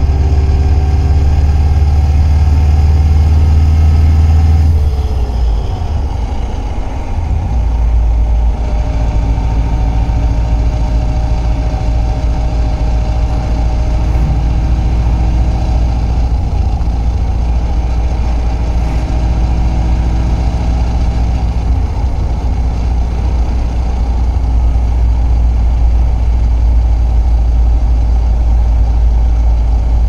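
Turbocharged flat-four engine of a 1995 Subaru Impreza WRX running, heard from inside the cabin, with a steady whine over the low engine hum; the note shifts about five seconds in. The owner hears this whine whenever the clutch pedal is let out, in gear or in neutral, and it is still there after a new clutch.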